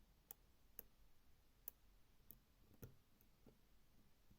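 Faint, irregular clicks of a lock pick working the pins of a repinned pin-tumbler lock cylinder, about six in all.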